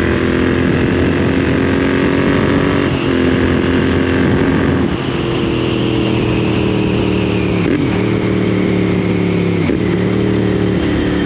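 Royal Enfield Interceptor 650's 648 cc parallel-twin running under way through aftermarket Lextek slip-on exhausts. The note is steady and dips briefly a few times, and it eases off about five seconds in.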